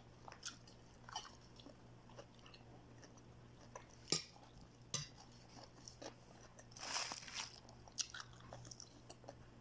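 Faint close-up eating sounds: chewing with scattered sharp clicks and a louder crunchy burst about seven seconds in, over a low steady hum.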